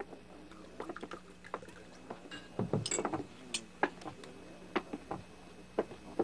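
Cutlery clicking and scraping against china plates as two people eat, in scattered light clicks, with a louder low knock about two and a half seconds in.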